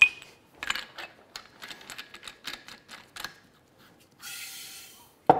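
Kitchen utensils and equipment being handled on a worktop: a sharp metallic clink, then a run of small clicks and knocks. About four seconds in comes a brief rushing noise, and a sharp knock near the end.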